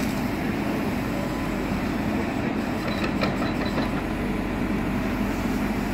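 JCB 4CX Eco backhoe loader's four-cylinder diesel engine running steadily under work, with a few light clicks or clanks about three seconds in.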